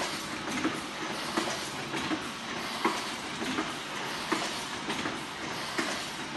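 Fully automatic nail polish filling and capping machine running: a steady mechanical hiss with a sharp clack repeating about every three-quarters of a second.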